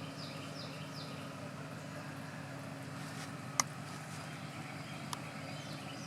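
Outdoor ambience: a steady low hum, with a bird's short falling chirps in the first second and two sharp clicks, about three and a half and five seconds in.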